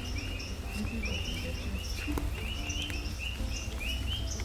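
Outdoor animal chirping: a steady run of short, evenly spaced chirps, about three a second, over a constant low rumble.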